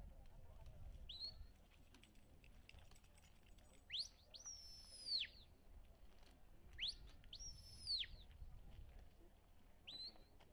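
Shepherd's whistle commands to a working sheepdog, directing it as it brings the sheep: a short rising note about a second in, then two pairs of calls, each a sharp upward sweep followed by a long high note that falls away, and one more short rising note near the end.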